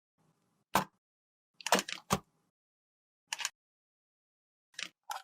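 Short, sharp clicks and taps of small cosmetic containers and tools being handled, coming at irregular intervals with dead silence between.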